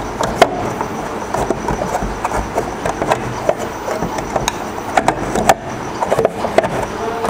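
Drip tray being fitted onto a soft-serve ice cream machine: scattered clicks and knocks over a steady background hiss.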